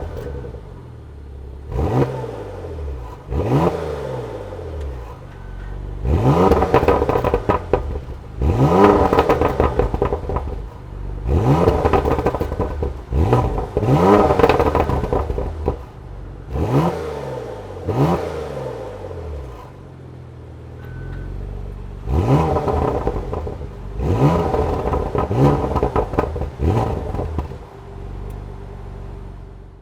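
Porsche Macan Turbo's twin-turbo V6 exhaust revved repeatedly, about a dozen sharp blips that each rise and fall back toward idle, with crackles as the revs drop.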